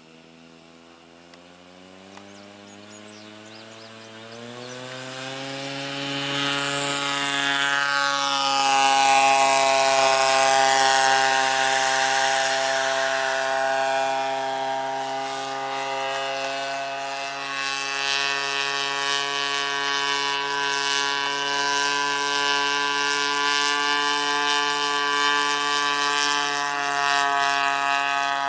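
Engine of a giant-scale radio-control model airplane, rising in pitch and getting louder over the first several seconds, then running steadily at high throttle.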